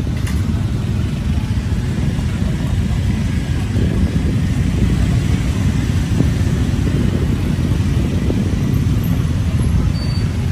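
Steady rumble of street traffic, cars and motorbikes running, with no single vehicle standing out.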